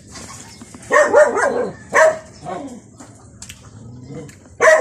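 A dog barking in short bursts: a quick run of barks about a second in, a single bark at about two seconds, and another run near the end.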